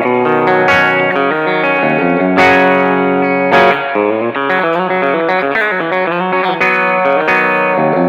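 Westcreek Helios electric guitar played through a Quilter amp with all controls at 12 o'clock and a little amp reverb, no pedals. Ringing chords are strummed, with a quick run of single picked notes in the middle and chords again near the end.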